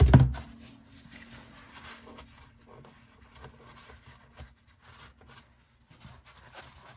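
The last hammer tap on a dowel in a wooden lid dies away at the very start. Then come faint rubbing and light handling sounds of hands and a cloth on the wood, with a few soft ticks, over a faint steady hum.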